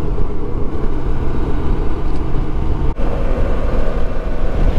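Motorcycle engine running steadily at riding speed, with wind and road noise on the camera microphone; the sound briefly breaks off about three seconds in.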